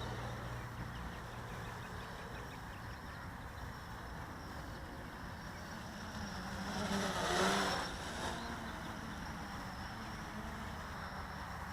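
Blade 350 QX quadcopter's electric motors and propellers whirring steadily, with one louder swell about seven seconds in where the pitch dips and comes back up as the throttle changes.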